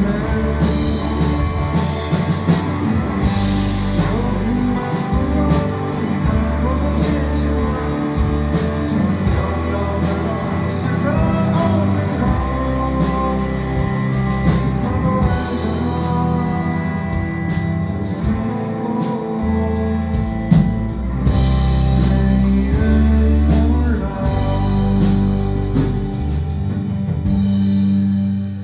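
Live rock band playing a full-band passage of a song, with bass and drums under guitar, the music dropping in level just before the end.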